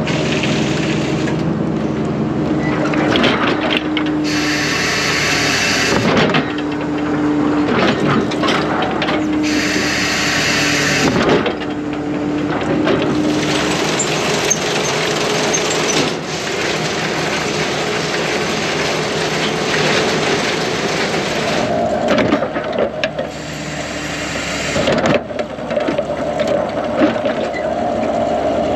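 Cotton picker engine and hydraulics running steadily with a droning hum while the raised basket dumps a load of seed cotton into a module builder. Two short bursts of hiss come about five and ten seconds in.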